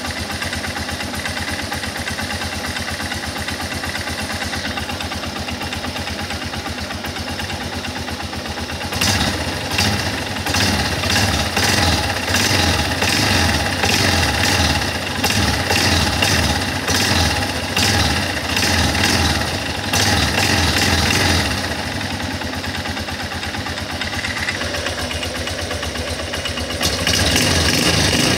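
Guerrero 250 ATV engine idling steadily, then blipped repeatedly with quick throttle surges about once a second, settling back to idle and then held at higher revs near the end. This is the noise the owner hears when accelerating.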